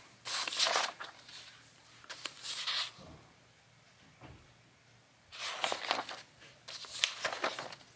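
Paper pages of a ring binder being turned and handled: four short rustles a second or two apart, with quiet between them.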